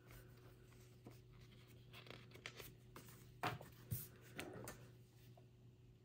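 Faint scratching of a pen on paper as boxes in a savings chart are coloured in, with two sharper taps about three and a half and four seconds in.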